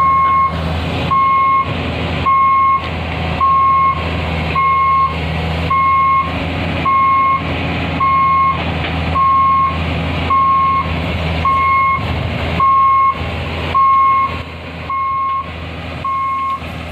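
Excavator travel alarm beeping steadily, about one beep a second, over the low, steady running of a diesel engine. The beeps grow quieter for the last few seconds.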